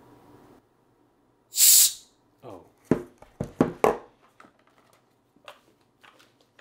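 A valve on a sealed, pressurized steel pipe is pulled open and the trapped hot gas vents in one loud, short hiss lasting about half a second. A man then lets out several short, sharp bursts of voice, followed by faint clicks of handling.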